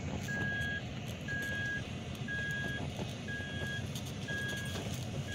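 A Toyota 4Runner's in-cabin warning chime beeping steadily, about once a second with each beep about half a second long, over the low rumble of the engine and tyres on a dirt track.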